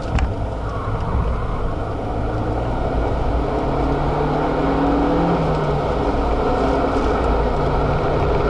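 Renault Mégane RS265's turbocharged 2.0-litre four-cylinder engine under way, heard from inside the cabin over a steady rumble of tyre and road noise; its note climbs through the middle and drops back to a lower pitch about two-thirds of the way through.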